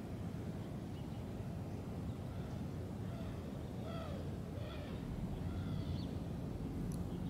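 Steady low outdoor rumble, with two faint short rising-and-falling animal calls about four seconds in and a small click near the end.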